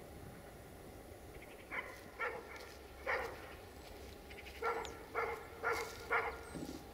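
A dog barking in two runs of short barks, three or four then four more, about half a second apart.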